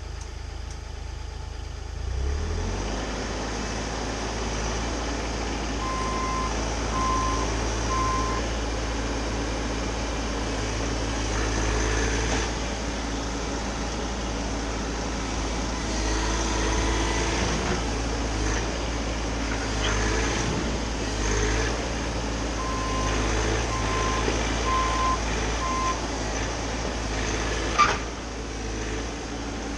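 Bobcat mini-excavator's diesel engine running steadily under work, getting louder about two seconds in. A backup alarm beeps twice in short runs (three beeps, then four beeps later). One short sharp sound stands out near the end.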